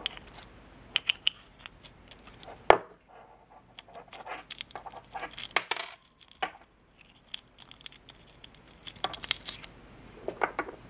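Small plastic and brass parts of a Dellorto carburettor's electric automatic choke being handled and pulled apart by hand: scattered light clicks and scraping, with one sharp click about two and a half seconds in.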